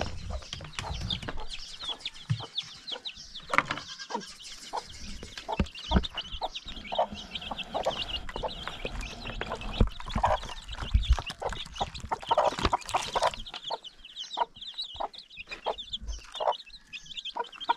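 A brood of young chicks peeping almost without pause in high, short, falling chirps while their hen clucks among them, with scattered knocks and scuffs as the birds peck at feed.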